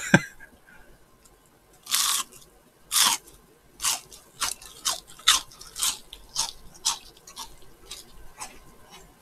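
Close-up crunching of deep-fried menbosha (shrimp toast) being bitten and chewed next to the microphone. A loud crisp bite comes about two seconds in, then a dozen or so crunchy chews at about two a second, growing fainter.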